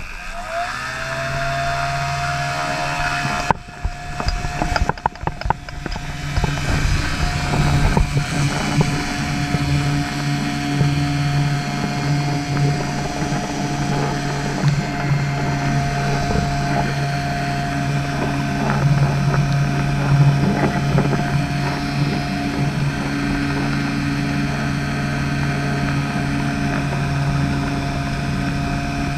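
A motor spinning up and then running at a steady hum, with a stretch of rough, buffeting noise about four to six seconds in.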